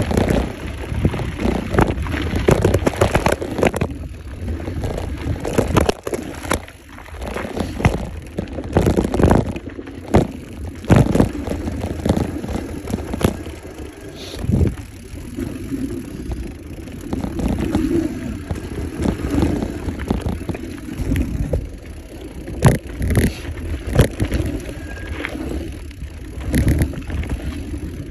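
Mountain bike riding fast down a dirt trail: the knobby tyres rumble over the dirt while the bike clatters and knocks sharply and irregularly over bumps and roots.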